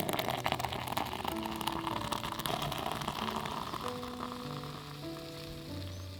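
Food sizzling and crackling as it fries in a hot pan, thinning out after about four seconds, with soft background music of held notes.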